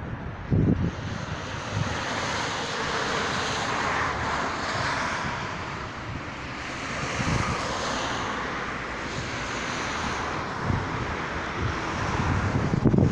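Steady road traffic noise from a busy street, swelling and easing as cars pass, with wind buffeting the microphone near the start and near the end.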